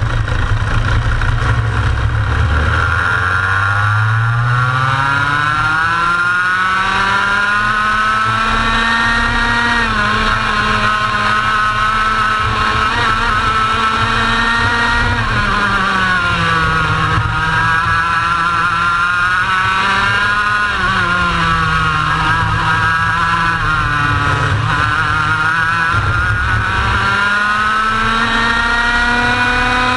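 Racing kart's two-stroke engine at full racing pace: its note climbs steadily for several seconds while accelerating, then drops and climbs again four or five times as it brakes for corners and powers back out.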